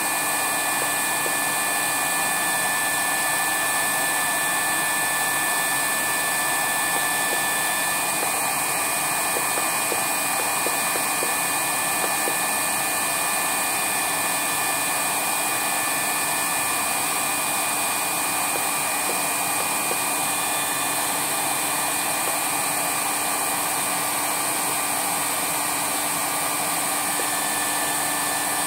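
Hot-air banner welding machine running steadily: an even rush of blower air with a few faint steady whining tones from its motors.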